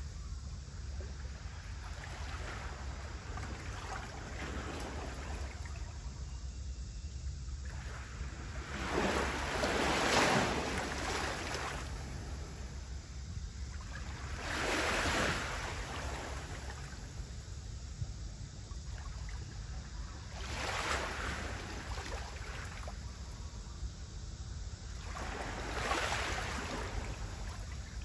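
Small waves of a calm sea washing in at the shore, a soft swell of surf about every five to six seconds, the loudest about ten seconds in, over a steady low rumble.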